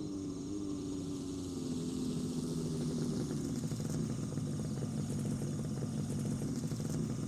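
Suzuki sport motorcycle's engine idling steadily, with crickets chirping faintly.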